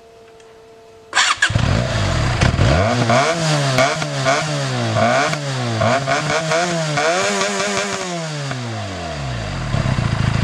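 Benelli 302R's 300 cc parallel-twin engine starting about a second in, then blipped through about six quick throttle revs and one longer rev before dropping back to idle. A faint steady hum comes just before the start.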